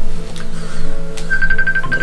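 A mobile phone ringing with a musical ringtone: held notes with a fast-trilling high note that comes back about every three seconds, once more over a second in.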